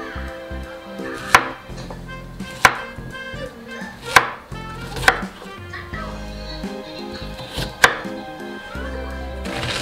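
Chef's knife slicing zucchini and potato on a wooden cutting board: five separate knocks of the blade meeting the board, a second or more apart, over soft background music.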